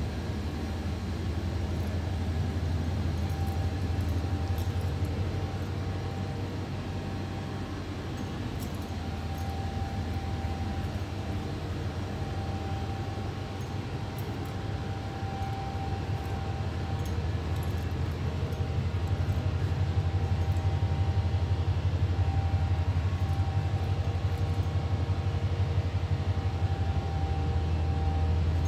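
Steady low machine drone of commercial kitchen equipment, with a faint steady tone above it, growing louder about two-thirds of the way through.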